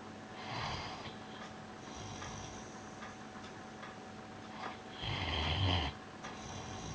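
A sleeping pet snoring, three snoring breaths in all. The loudest comes about five seconds in and lasts about a second.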